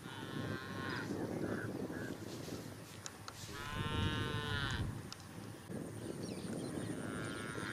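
Three drawn-out animal calls, each about a second long, the middle one the loudest, over a steady low rumbling background.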